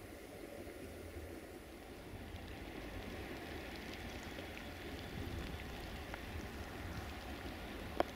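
Quiet outdoor ambience: a steady faint hiss over a low, uneven rumble, with a few light ticks and one sharp click about eight seconds in.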